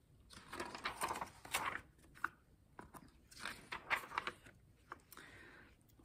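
Pages of a book being turned and handled: a series of faint, irregular crinkling rustles that die away about five seconds in.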